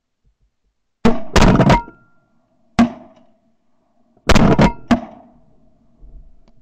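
A volley of shotgun shots fired at a flock of ducks overhead: several loud blasts in quick succession about a second in, a single shot near three seconds, then another quick run of blasts a little past four seconds.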